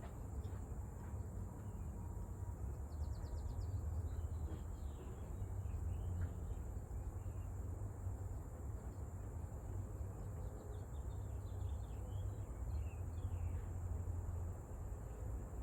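Outdoor background: a steady low rumble with birds chirping now and then and a steady high insect-like hiss.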